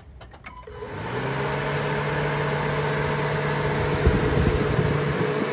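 Honda K20 four-cylinder engine of an 8th-gen Civic Si starting up about a second in and then idling steadily. This is the first start after a new aftermarket fuel rail is fitted.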